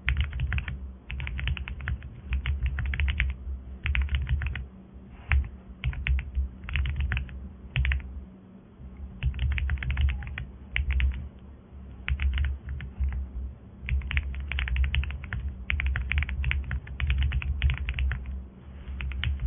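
Typing on a mechanical keyboard fitted with Cherry-profile PBT keycaps: rapid runs of keystrokes in bursts with short pauses between, each press a sharp clack over a low thud.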